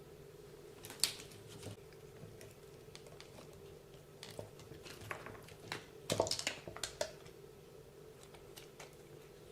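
Scattered light clicks and taps of small plastic and metal parts and hand tools as the rear end of a 1/14 RC car is taken apart, with a quick cluster of clicks about six seconds in, over a faint steady hum.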